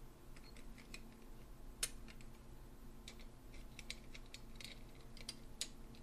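Small metal clicks and light taps as the cover plate is fitted onto a Weiser deadbolt's lock body, with a sharper click about two seconds in and another near the end.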